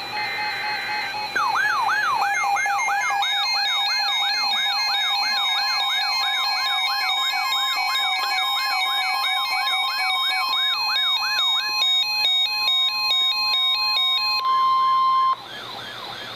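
Electronic siren wailing up and down about three times a second, layered over steady and stepping electronic beeps. Near the end a brief steady high tone sounds, then everything drops to a lower level with the siren still faintly going.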